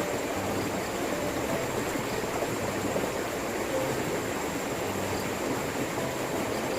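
Steady rush of water flowing in a small stream.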